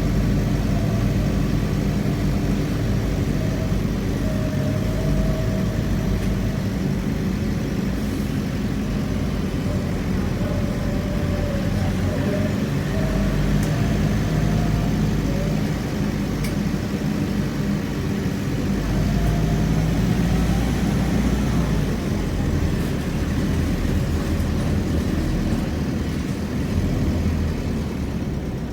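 City bus engine running while riding on board, the engine note rising and falling as the bus speeds up and slows, over a steady road hum, with a few faint clicks.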